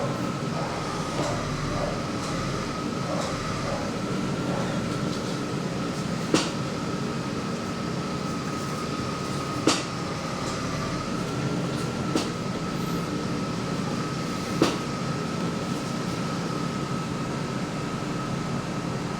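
Steady running noise of a BMW E39 530i with a steady whine, broken four times by a sharp click, the kind of click that comes from the steering when the wheel is turned. The owner traced this click to loose bolts on the steering rack connection.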